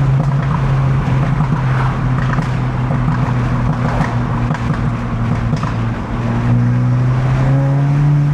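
MK8 Volkswagen GTI's turbocharged four-cylinder engine running through a Milltek downpipe and cat-back exhaust, holding a steady note with a brief dip about six seconds in.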